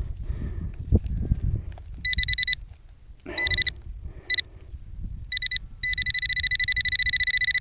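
Handheld metal detector beeping with a rapid, pulsing high tone, first in short bursts about two seconds in, then almost continuously near the end, signalling metal in the dug soil: a small piece of lead. Soil rustling and a knock about a second in.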